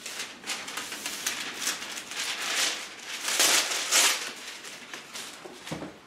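Parchment paper rustling and crinkling as it is pulled out and laid on a baking tray, loudest about three to four seconds in. A short thump near the end.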